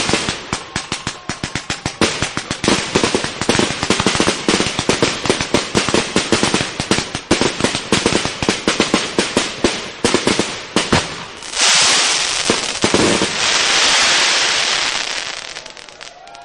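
38 mm bombette fireworks shells firing and bursting in a rapid barrage, many bangs a second. About twelve seconds in, the bangs thin out and give way to a dense steady hiss that fades out near the end.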